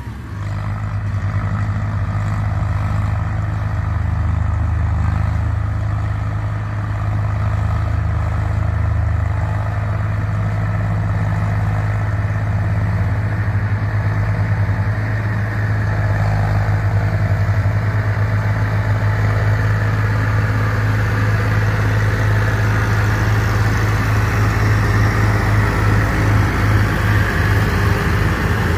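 Diesel tractor engine running steadily, a low pulsing hum. A combine harvester working close alongside adds more machinery noise in the second half.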